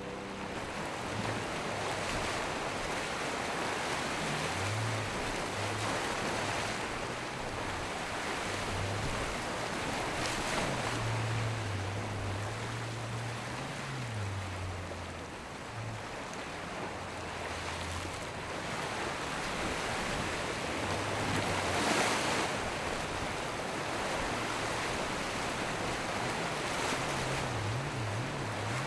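Rough surf and wind rushing over the microphone, with a faint low drone of boat engines running offshore underneath.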